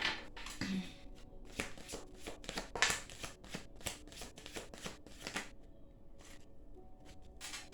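A deck of tarot cards being shuffled and handled: a quick, irregular run of papery riffles and flicks that thins out after about five seconds.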